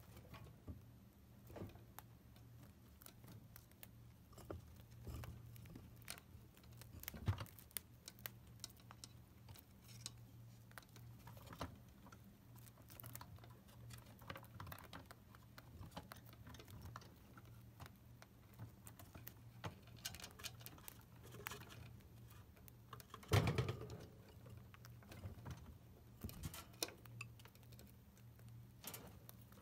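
Chinchillas gnawing apple wood sticks: quick, irregular little clicks and crunches of teeth on wood, with one louder knock about 23 seconds in. A low steady hum runs underneath.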